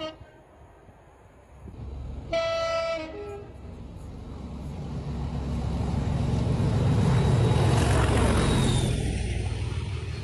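Train horn sounding a short high note followed by a brief lower one, about two seconds in. Then the train passes close by, its rumble and rushing noise building to a loud peak near the end before cutting off abruptly.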